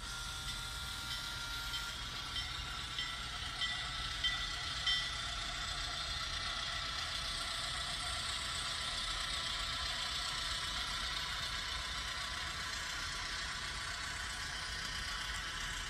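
Sound decoder in an HO scale Rapido 44-ton switcher playing its diesel engine sound through the model's small speaker: a steady, crisp engine running with the cylinders firing. A few light clicks come in the first five seconds.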